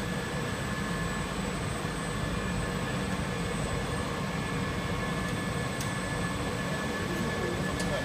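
Rubber extrusion and vulcanization production line running: a steady machinery drone with fan noise and a constant high whine. Two faint ticks come in the last few seconds.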